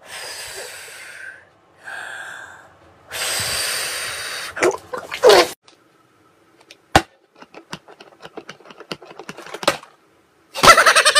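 Hissy, splashy bursts of noise like liquid being slurped and blown out of the mouth, then a run of light taps and clicks as plastic and cardboard containers are handled and stacked, and a loud rapid pulsing vocal burst near the end.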